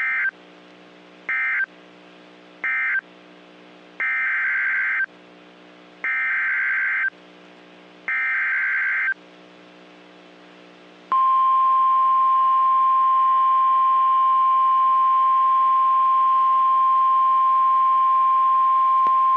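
NOAA Weather Radio EAS/SAME digital data bursts: three short end-of-message bursts at the start, then three longer header bursts about a second each for the next alert, over a low steady hum. About eleven seconds in, the steady 1050 Hz weather-radio warning alarm tone begins and holds without change.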